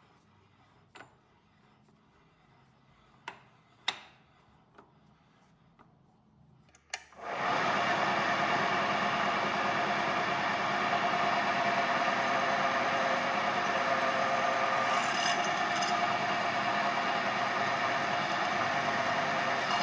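A few light metal clinks, then from about seven seconds in a knee mill runs steadily with its drill bit boring into square steel tubing.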